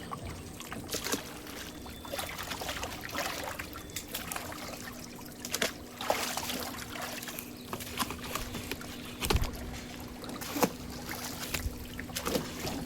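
Water splashing and trickling, with irregular sharp splashes and knocks and a faint steady hum underneath.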